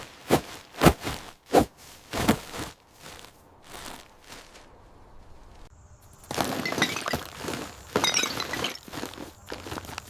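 Hard debris being cleared, with glass breaking and clinking: four sharp knocks in the first two seconds or so, then a dense rattling clatter with glassy tinkling from about six to nine seconds in.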